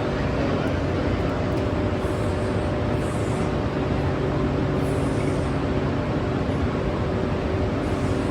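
Steady mechanical hum of a train standing at the platform, with several steady tones over an even rumble and no change in level.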